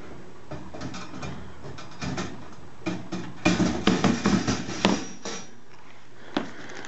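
Wire-mesh cat drop trap being handled, its metal mesh and frame clicking and rattling in scattered knocks, with a busier run of clanks and rattles around the middle.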